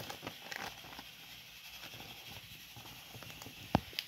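Pokémon trading cards and a foil booster pack being handled on a table: soft rustling and small taps, with one sharper click near the end.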